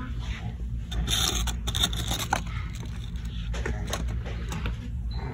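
Scraping and rustling handling noise with scattered light clicks over a steady low hum, loudest about a second in.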